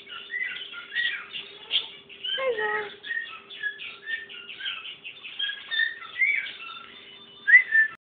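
Caged parrot chirping and whistling: a busy stream of short high chirps and whistles, with a lower, falling call about two and a half seconds in and a sharper, louder chirp near the end.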